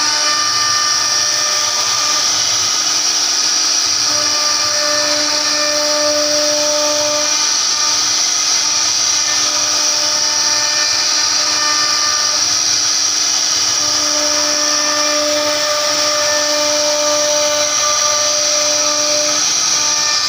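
CNC router spindle running at high speed, its bit carving a relief pattern into a wooden board. A steady high-pitched whine, with lower tones that fade in and out every few seconds as the cut changes.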